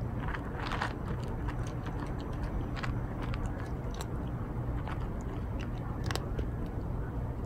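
A cat crunching dry kibble from a plastic tub, in irregular crunches and clicks over a steady low hum.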